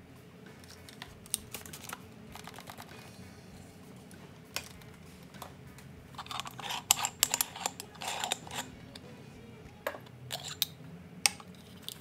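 Hands handling a metal moka pot and setting it down on its electric heating base: scattered sharp clicks, with a busy run of small clattering knocks from about six to nine seconds in.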